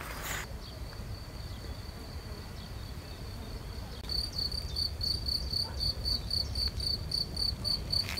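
A singing insect, cricket-like, giving a thin, high, steady trill. About halfway through it turns into evenly spaced chirps at about three a second.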